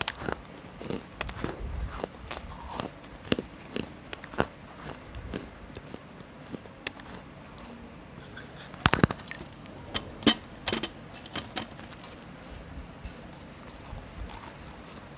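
Close-miked crunching of a fired-clay kulhad cup being bitten and chewed: irregular sharp cracks of brittle clay between the teeth, the loudest crunches about nine and ten seconds in.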